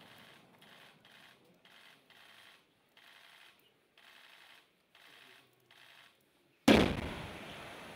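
Soft, evenly spaced crunching steps, about one a second, of a soldier in a protective combat suit walking across dry grass after a test blast. Near the end a second explosive charge goes off, sudden and loud, fading over about a second.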